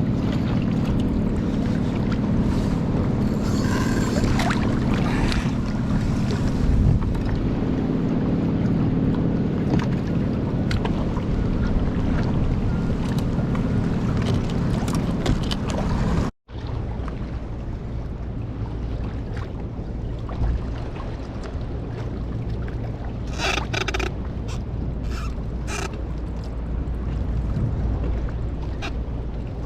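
Wind buffeting the microphone over choppy sea water around a small fishing craft, a steady rushing noise with a low hum and a few small knocks later on; it drops out for an instant about halfway through.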